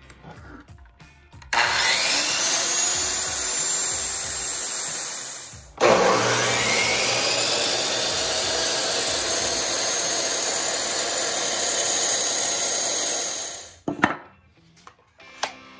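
A DeWalt circular saw starts about a second and a half in, its motor whine rising as it spins up, and runs for about four seconds. A miter saw then starts with the same rising whine and runs for about eight seconds before winding down. Near the end come a few sharp knocks as a block of wood is set down on the workbench.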